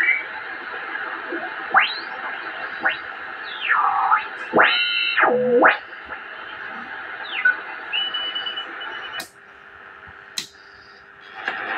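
Shortwave receiver being tuned across a band: steady hiss with whistling tones that slide up and down in pitch as the dial passes stations. About nine seconds in, a click cuts the hiss down and a low steady tone sounds, a second click follows, and the hiss comes back near the end.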